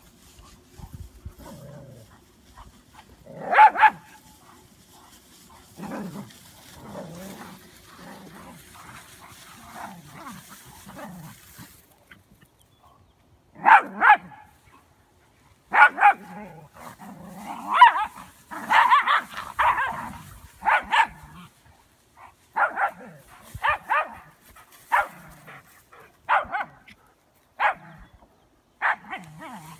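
A dog barking in short, sharp bursts: a quick double bark about four seconds in, then repeated barks from about halfway through, bunched together for a few seconds and then coming roughly once a second.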